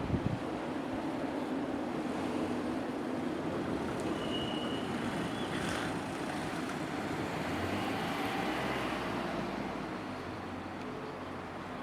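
Steady rumble of a passing vehicle, with a brief high tone about four seconds in.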